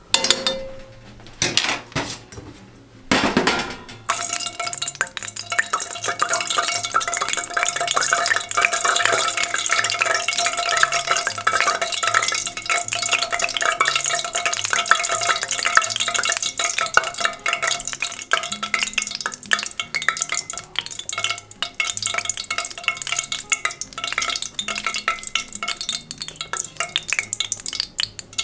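A few knocks of utensils against cookware, then a dense, steady crackling sizzle of tsukune (chicken meatballs) cooking in hot oil or bubbling sauce in a pan, with a faint steady tone underneath.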